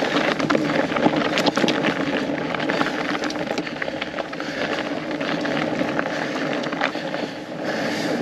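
Fat bike on studded tyres rolling over a frozen, snow-dusted trail: steady tyre noise with frequent clicks and rattles from the bike.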